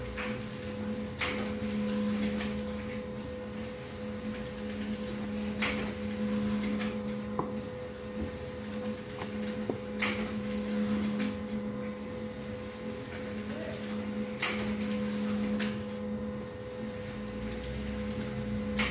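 Steady mechanical hum with a sharp click repeating about every four and a half seconds.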